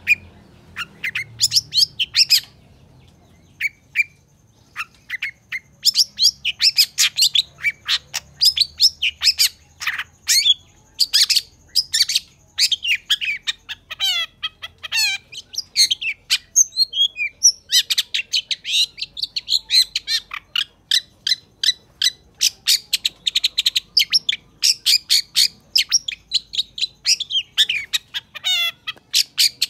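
Long-tailed shrike (cendet) singing hard: fast runs of short, sharp chattering notes, sparser for a few seconds near the start, then almost continuous, with quick downward-sliding notes around the middle and near the end.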